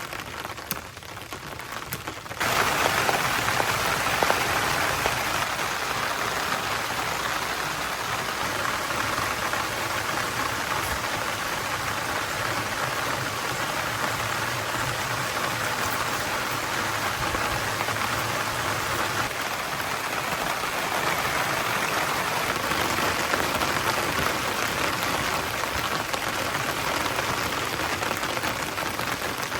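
Heavy rain falling steadily. The sound jumps suddenly louder about two seconds in.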